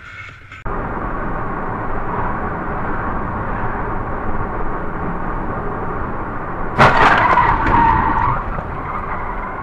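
Steady car and road noise as heard from a dashcam inside a moving vehicle. About seven seconds in, a sudden loud bang with a harsh ringing screech lasts about a second and a half, typical of a road collision.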